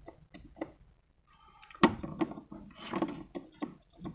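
Multimeter test probes clicking and scraping against a rectifier diode's leads on a circuit board, in scattered small taps, with a brief faint tone a little over a second in and one sharper click just before two seconds.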